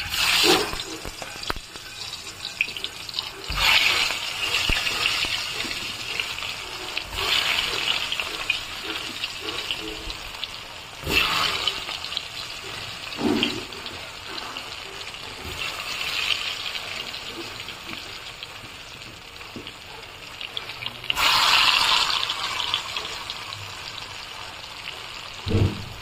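Hot oil sizzling in a wok as turmeric-coated pieces are dropped into it, the hiss swelling loudly with each new batch, about five times, and settling to a steady sizzle in between.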